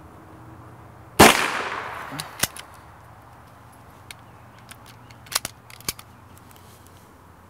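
A single .22 LR shot from a miniature bolt-action Mosin pistol about a second in, with a short fading tail, then a few sharp metallic clicks a few seconds later as the bolt is worked to eject the case and chamber the next round.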